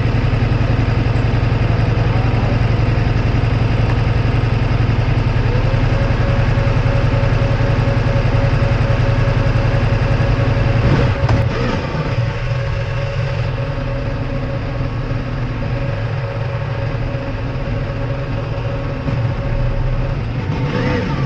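Ducati Multistrada V4S's V4 engine running steadily while the motorcycle is ridden, picked up by a camera clamped to the bike. About eleven seconds in, the engine note drops and gets quieter.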